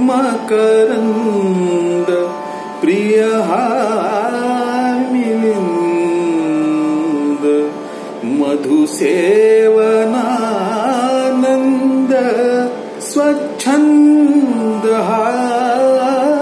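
A man singing a Marathi natya sangeet song in Hindustani classical style, with long held notes broken by fast, ornamented runs, over a steady drone.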